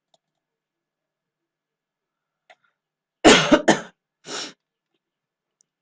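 A man coughing: three hard coughs close together about three seconds in, the last a little apart and weaker; he has a cold.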